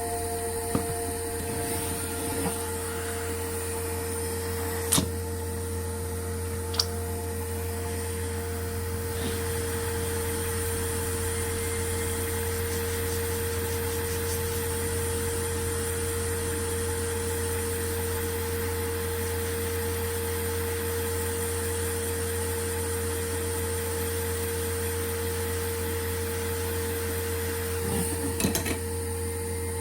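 Steady electrical hum and drone of running repair-bench equipment, with a few sharp little clicks and taps of tools on the work, including a short cluster near the end.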